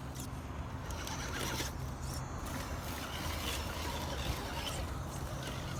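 Axial SCX10 Deadbolt RC crawler working over rocks: its small electric drivetrain whirring and its tires and chassis scraping and rattling in short irregular spells, over a steady low rumble.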